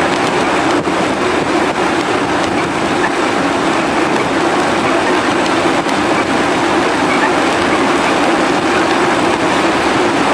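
Steady rushing noise with an even low hum, the wind and engine noise of a ship under way.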